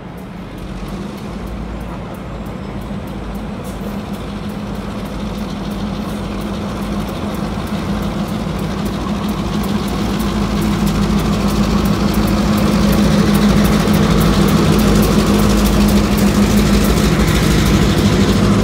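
Two Norfolk Southern EMD two-stroke diesel locomotives pulling a freight train past at close range: a steady low engine drone that grows louder as they approach and is loudest near the end, with rapid fine ticking over it.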